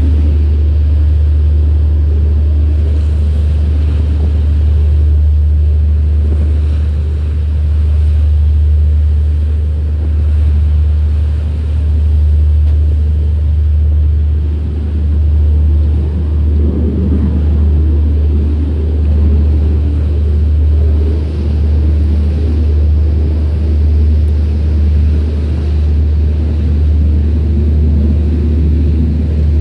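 Steady low engine rumble of a small motorboat under way, with water and wind noise mixed in.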